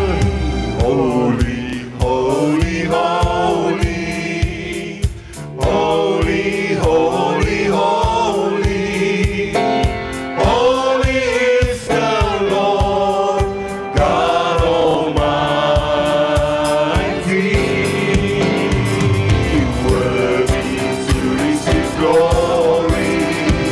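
Church worship band and vocal team performing a praise song: several voices singing together into microphones over drums, electric guitar and keyboard, with a steady beat.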